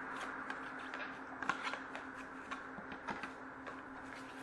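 Faint rustling and light scattered clicks of a hockey trading-card pack and its cards being handled, over a steady low hum.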